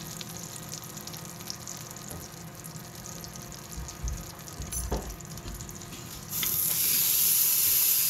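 Butter and olive oil crackling faintly in an Instant Pot's stainless steel inner pot on high sauté, with a couple of dull knocks near the middle. About six seconds in, a bone-in rib roast goes into the hot fat and a loud, steady sizzle starts as it begins to sear.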